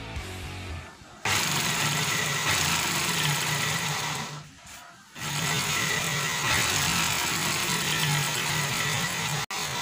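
Electric drill driving a homemade jigsaw, running with a steady pulsing buzz. It starts suddenly about a second in, stops briefly near the middle, then starts again.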